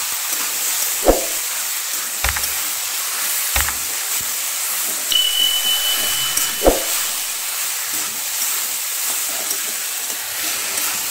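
Chopped banana stem and vegetables frying in mustard oil in a steel kadai, a steady sizzling hiss. A spatula knocks against the pan four times as the mix is stirred.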